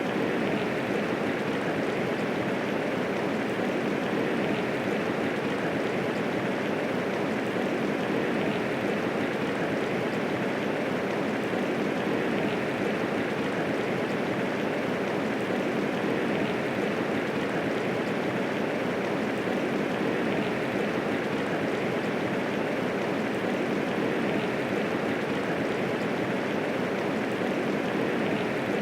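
Steady medium rainfall, an even unbroken hiss of many raindrops with no thunder.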